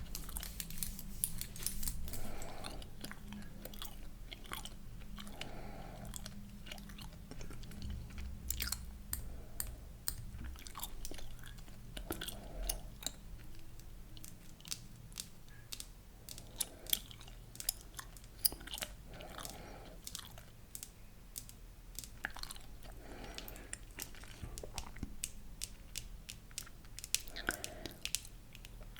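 Close-miked chewing gum being chewed, with many sharp wet mouth clicks and smacks. A steady low hum runs underneath.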